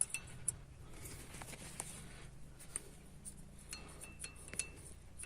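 Faint scattered clicks and light metallic clinks of small steel brake parts and a thin galvanized steel shim being handled and fitted, a few ringing briefly about four seconds in, over a low steady hum.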